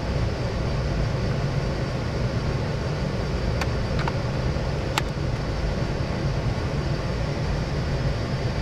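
Steady low background hum and rumble, with three small sharp clicks about three and a half to five seconds in as the plastic rear door of a 1:25 model car is pushed shut on its homemade aluminum hinge.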